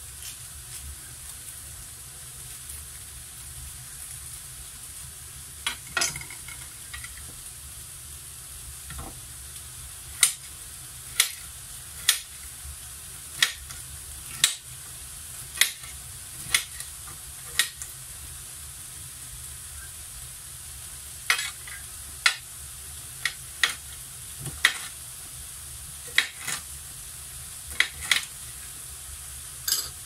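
Chopped onions sizzling steadily in a frying pan, with a utensil tapping and knocking against the pan as they are stirred. The taps come about once a second from around six seconds in, with a short pause in the middle.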